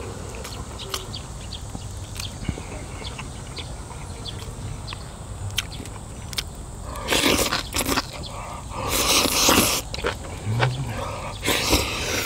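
Close-miked eating of braised beef rib with aged kimchi: light clicks of chopsticks and chewing, then three loud, noisy bursts of mouth sounds in the second half, each under a second.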